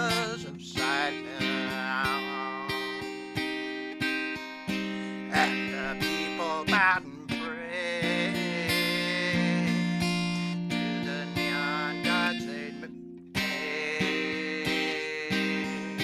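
Acoustic guitar played with a capo: an instrumental passage of picked and strummed chords between sung verses, with notes plucked every half second or so.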